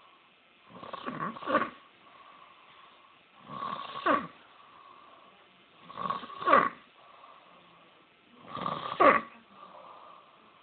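A man snoring loudly: four long snores about two and a half seconds apart, each swelling to a sharp peak.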